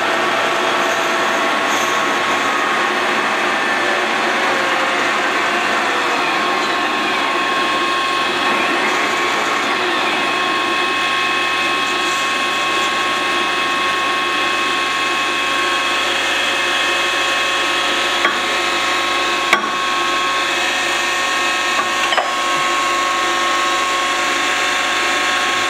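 The open gearbox of a 1955 Boehringer lathe running: gears spinning and meshing in oil make a steady whine of several tones, with a few sharp clicks in the second half.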